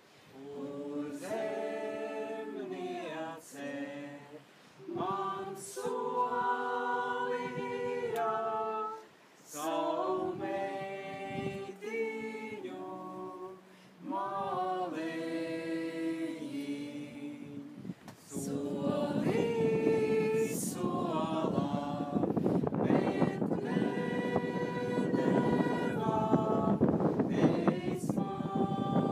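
Choir singing a cappella, several voices holding long notes in parts with short pauses between phrases. About two-thirds of the way in, a steady rushing noise rises under the singing.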